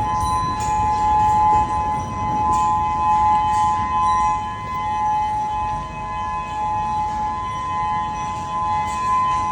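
Outdoor civil-defense warning siren sounding during a siren test: a steady, unwavering tone made of two close pitches, held without rising or falling.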